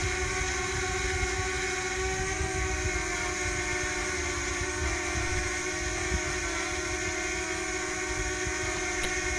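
DJI Mini quadcopter hovering, heard from behind. Its propellers make a steady, screechy whine of several held tones, which sounds as if the propellers interfere and give a secondary frequency.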